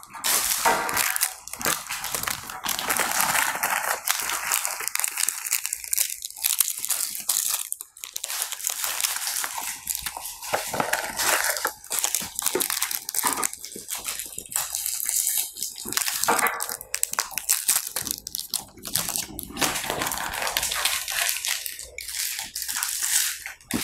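Crunching of chocolate-filled biscuits being bitten and chewed, mixed with the crinkling of plastic wrappers being torn and handled.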